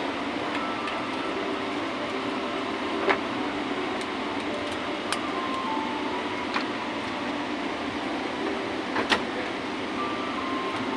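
Steady cabin noise inside a passenger jet airliner, with a few sharp clicks scattered through it.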